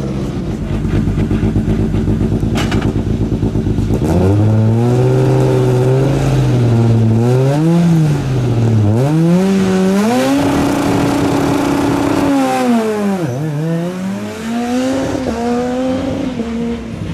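Rally car engine with a low rumble for about four seconds, then revving hard as the car accelerates. The pitch climbs and falls back several times, holds high for a couple of seconds, then drops sharply and climbs again near the end.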